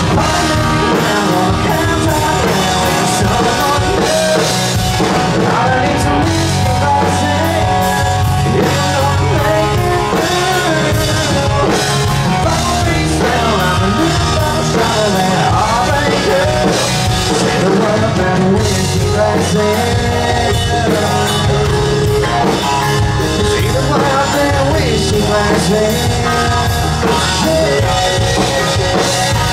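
Live country band playing a song, with electric guitars, bass guitar, drum kit and strummed acoustic guitar, at a steady loud level.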